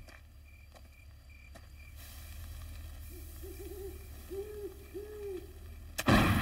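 An owl hooting: a quick run of three hoots, then two longer ones, about three seconds in. A sudden loud bang near the end.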